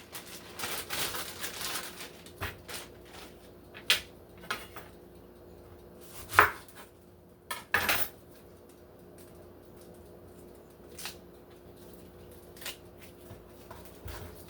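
Kitchen utensils and dishes knocking and clinking on a countertop in scattered, irregular knocks, the loudest about six and a half and eight seconds in.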